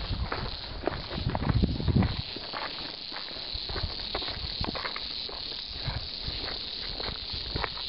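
Footsteps on a dirt mountain trail, heard as irregular short scuffs and clicks over a steady high hiss, with low thumps on the microphone in the first two seconds.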